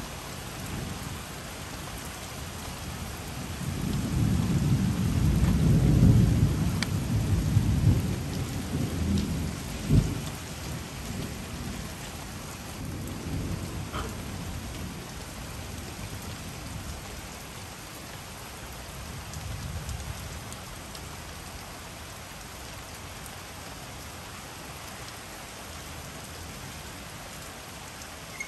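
Steady heavy rain falling, with a long roll of thunder that swells about four seconds in, peaks around six seconds and rumbles away, then a sharp thunder crack near ten seconds. Fainter low rumbles follow a few seconds later.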